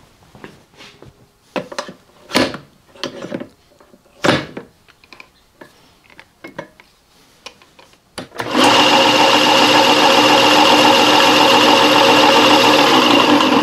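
A few sharp metal knocks and clicks as a drill chuck is handled and fitted onto the spindle. About eight seconds in, the 1918 Willey electric friction-drive drill press starts and runs steadily with a loud whine and hiss.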